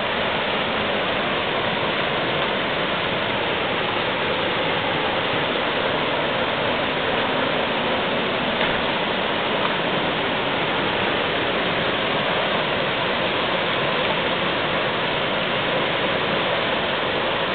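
Rocky river rushing steadily over rapids, an even, unbroken water noise.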